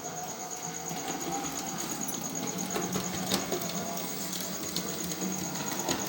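Newly DCC-chipped model class J17 locomotive running on its track on its first run: the small electric motor hums steadily under a thin pulsing high whine, with scattered clicks from the wheels on the rails.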